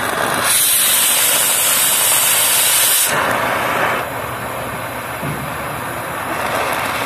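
Oxy-fuel cutting torch hissing as it cuts steel grating, with heated steel blown through by the cutting-oxygen jet. The hiss is loudest for the first three seconds or so, then eases to a quieter hiss after about four seconds.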